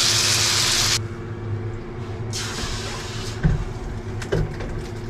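Pen shell (tairagi) meat sautéing in butter in a frying pan, sizzling loudly for about a second before cutting off suddenly. Then comes a steady low hum, a brief softer hiss, and two light knocks.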